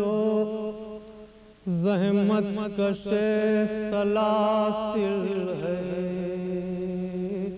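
A man's solo voice chanting an Urdu salam, an elegiac recitation, in long held notes that waver and turn. The voice drops away for a breath about a second in, then picks up again, and fades at the end.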